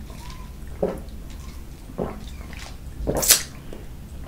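A person drinking water from a sports bottle's spout: a few short sips and swallows about a second apart, then a louder, sharp breath just after three seconds in.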